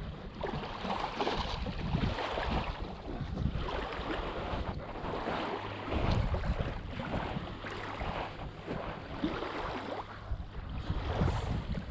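Wind buffeting the microphone, with lake water washing in the background.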